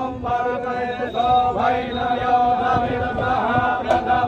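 Hindu mantras chanted during a riverside puja, recited in short phrases on a nearly level pitch with brief breaks between them.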